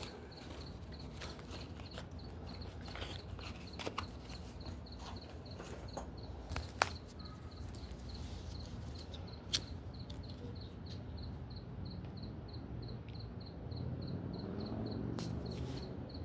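Crickets chirping in a steady, even rhythm of short high-pitched pulses. A few sharp clicks break in during the first half, and a low rumble swells near the end.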